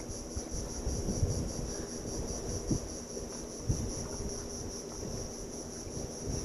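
Steady, high insect chorus from the mangroves, pulsing slightly, over a low rumble with a few soft knocks.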